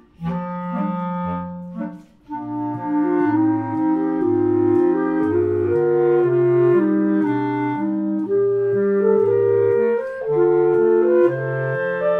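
Clarinet quartet of three B-flat clarinets and a bass clarinet playing, the bass clarinet keeping a line of short low notes under held chords and melody in the upper clarinets. A brief drop-off about two seconds in, then the full ensemble.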